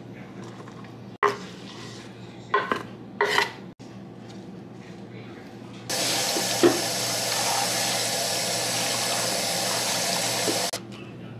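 A few sharp knocks of a knife on a wooden cutting board, then a kitchen faucet running hard into a stainless steel sink over shrimp being rinsed in a metal bowl. There is one clank of the bowl, and the water shuts off suddenly near the end.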